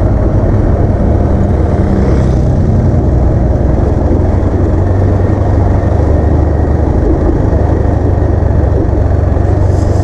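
Motorcycle being ridden at low speed, its engine running steadily under a heavy, even low rumble of wind on the camera microphone.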